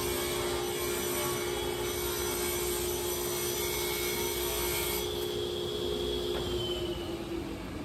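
Table saw ripping a thin, flexible plywood panel: a steady motor hum under a loud cutting hiss for about five seconds. The cut then ends and the blade runs free, its pitch falling near the end as the saw starts to wind down.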